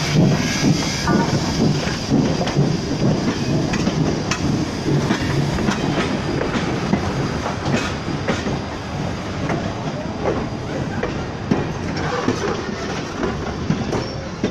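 Wilmington & Western steam locomotive No. 98, a 4-4-0, and its train rolling past within a few feet: the locomotive's running gear first, then the tender and passenger coaches. The rumble is steady, with sharp clicks of the wheels over the rail joints.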